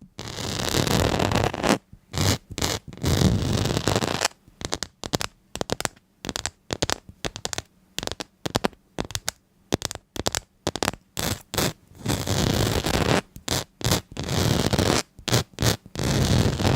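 Scratching and scraping in irregular strokes, some brief and some drawn out over a second or so, with short silent gaps between them.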